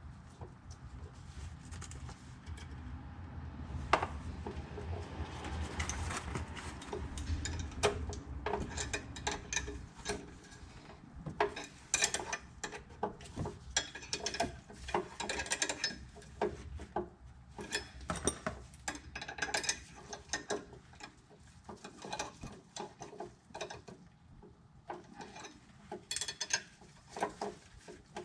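Hand tools working on metal: a long run of irregular clicks, rattles and scrapes, with one sharp loud click about four seconds in and a low rumble under the first ten seconds or so.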